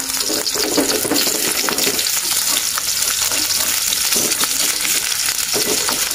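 An egg frying in hot oil in a metal wok, with a steady sizzle, while a spatula scrapes and works under the egg against the pan now and then.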